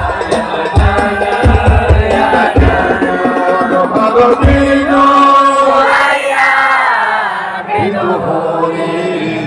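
Sholawat, an Arabic devotional song, chanted over deep drum beats. The drums drop out after about three seconds while a long sung line carries on.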